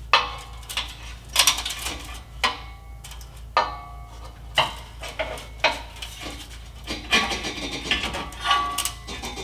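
Steel pry bar clanking against the exhaust flange of a 2017 Ford F-350's diesel particulate filter as the flange is levered off its studs. About a dozen irregular metallic knocks, several with a brief ring.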